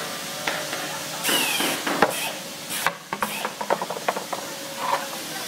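Wooden chair being handled and knocked against a concrete floor: a sharp wooden knock about two seconds in, then a run of light clacks and scrapes, over a steady hiss.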